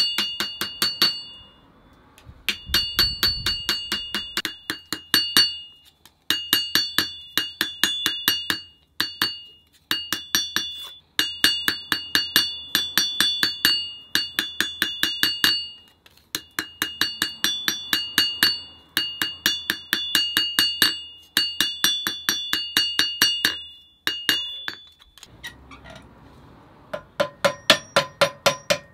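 A hammer striking a nail in quick runs of blows, about four a second, with short pauses between runs. Each blow gives a sharp metallic clink with a high ring. The last few blows near the end ring lower.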